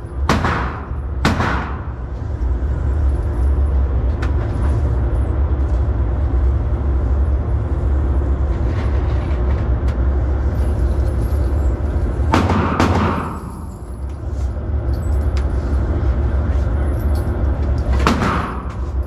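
Gunshots at a shooting range, each a sharp crack with a short echo: two about a second apart at the start, one about twelve seconds in, and one near the end, over a steady low rumble.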